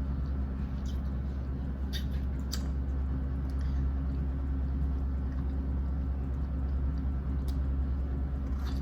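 Steady low rumble with a constant hum, with a few faint clicks about two seconds in and again near the end.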